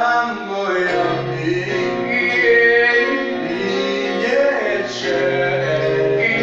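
Worship song: singing in long held notes over instrumental accompaniment.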